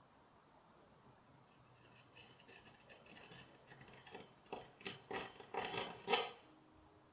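A 12 mm hand carving gouge cutting flutes into walnut, a run of short cutting and scraping strokes. They start faintly about two seconds in, grow louder and closer together, and stop abruptly after the loudest stroke near the end.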